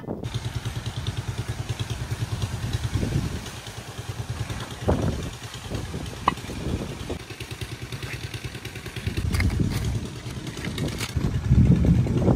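A small engine running with a steady, rapid putter, getting louder near the end, with a couple of light clicks in the middle.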